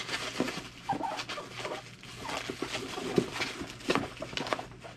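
Hands rummaging inside a cardboard box: an irregular run of rustles, scrapes and crackles as the packing and its contents are moved against the cardboard.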